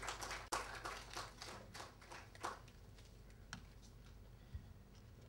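Scattered applause from a small audience, separate claps that die away about two and a half seconds in, leaving faint room noise with an occasional tap.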